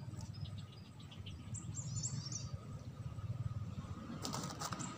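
Small birds chirping with short, quick high calls, mostly in the first half, over a low wind rumble on the microphone. A few brief clicks about four seconds in.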